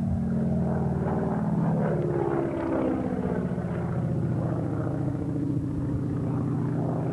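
Propeller aircraft engine droning as the plane flies past, its pitch falling from about two seconds in.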